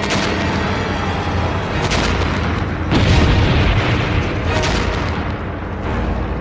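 A string of bomb explosions, about five blasts over a dense rumble, the loudest about three seconds in.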